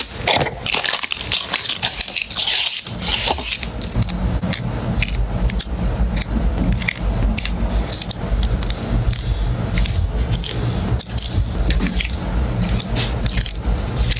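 Close-miked handling of small puzzle pieces: scraping and crinkling in the first couple of seconds, then many small clicks and taps as tiny pieces are pressed out and fitted together, over a low steady hum.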